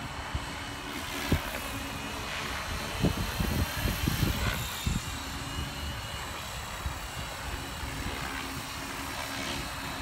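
Align T-Rex 550 radio-controlled helicopter flying at a distance: a steady rotor hum and whine. A few low rumbles and bumps come about three to five seconds in.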